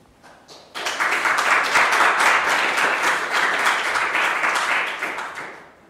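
Audience applauding: it starts suddenly a little under a second in, holds steady for about four seconds, then dies away near the end.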